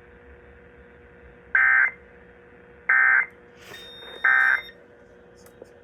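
Three short Emergency Alert System (SAME) end-of-message data bursts on NOAA Weather Radio: harsh buzzing chirps about a third of a second each, about a second and a half apart, marking the end of the severe thunderstorm warning.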